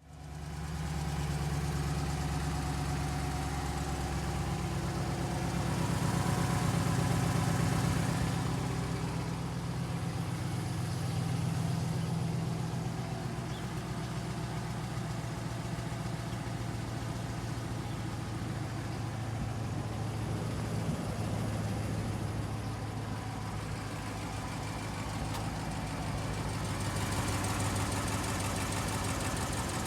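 2011 Dodge Ram's 5.7-litre Hemi V8 idling steadily. The owner was chasing a light tick in it that he put down to leaking exhaust manifold gaskets.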